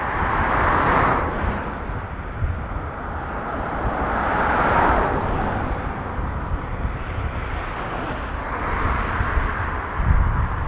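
Boeing 777-300ER's GE90 jet engines running at low taxi power as the airliner turns on the runway. A steady low rumble is overlaid by a rushing sound that swells three times: about a second in, around four to five seconds in, and near the end.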